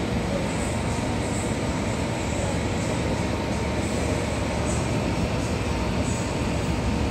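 Steady rumble and hiss of jet airliner engines running, with faint steady tones above the rumble.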